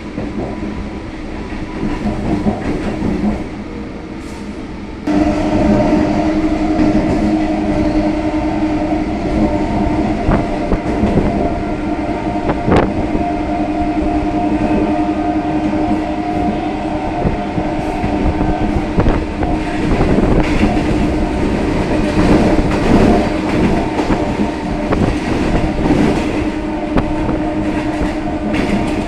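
Electric multiple unit suburban train running on the track, wheels clattering over the rails. About five seconds in the sound gets suddenly louder and a steady humming tone sets in and holds.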